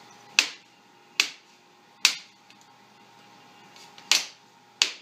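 Plastic clips of a laptop's screen bezel snapping loose as the front cover is pried off, five sharp cracks over a few seconds, loud enough to sound like the plastic might break.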